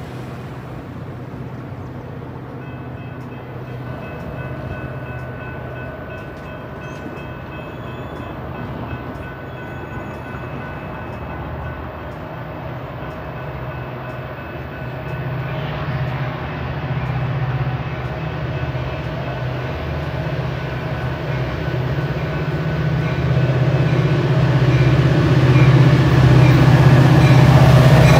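Diesel locomotive of a Metra commuter train (an F40PHM-2) approaching at speed: a steady low engine drone with several steady higher tones over it, growing louder over the second half as the train nears.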